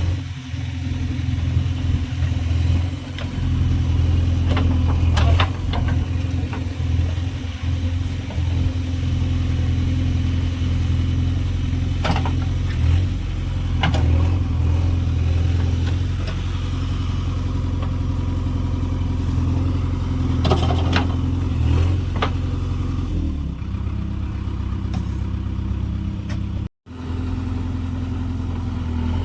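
Heavy diesel machinery at a digging and loading job, its engine running steadily with a deep hum, with now and then a short metallic clank. The sound cuts out for an instant near the end.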